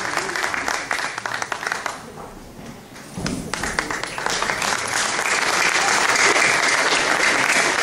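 A congregation applauding with many hands clapping. The applause fades to a lull about two seconds in, then picks up again a second later and grows fuller.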